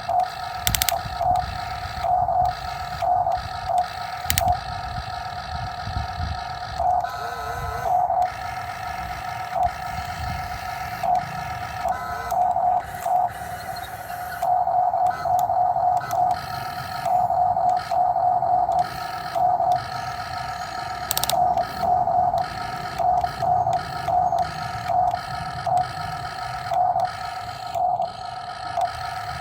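Electric motors of a Huina radio-controlled model excavator whining while digging, starting and stopping in short spurts as the controls are worked, with the pitch wavering briefly under load about seven seconds in.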